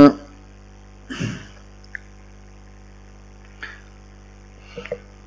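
A pause in a man's speech: a steady low hum, a faint breath about a second in, and a few soft clicks.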